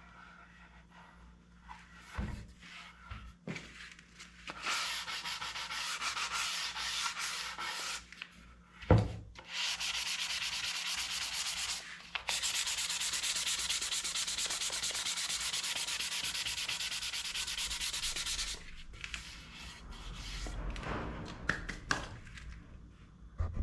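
Abrasive rubbing on wood, typical of sanding a wooden stool part, in several long spells of even scratching with short pauses between them. A single sharp knock comes about nine seconds in, with a few lighter knocks near the start and end.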